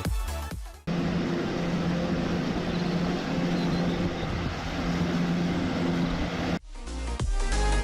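A motor running steadily with a low hum over a noisy whirr, between stretches of electronic music that cuts off about a second in and comes back near the end.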